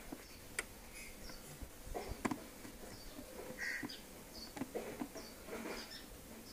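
Scattered light clicks and knocks from hands working the screws of a motorcycle's plastic air filter housing, with short bird chirps in the background.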